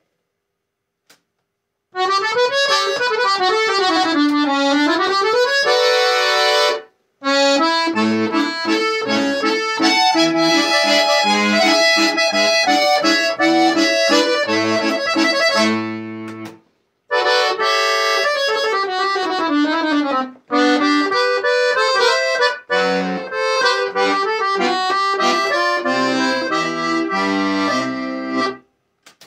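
Lira Embassy piano accordion being played: quick melody runs on the right-hand keys over left-hand bass notes, in three short passages with sudden silent breaks between them.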